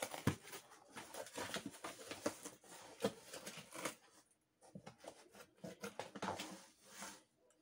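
Cardboard shipping box being opened by hand: flaps pulled back and cardboard rustling, crackling and scraping in a quick string of small knocks, sparser after about four seconds.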